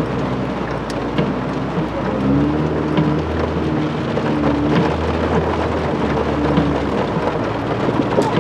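Heavy rain beating on a car's roof and windows, heard from inside the cabin as a steady pattering hiss.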